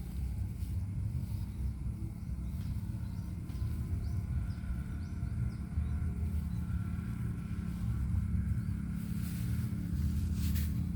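A small engine running steadily with a low rumble.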